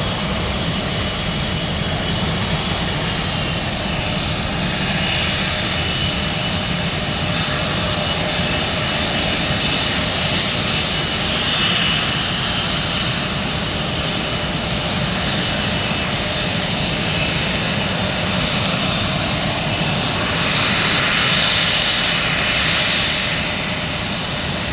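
Panavia Tornado GR4's twin RB199 turbofan engines running at taxi power: a steady high-pitched whine over a low rumble. The whine dips slightly in pitch a few seconds in and swells louder briefly about 21 seconds in.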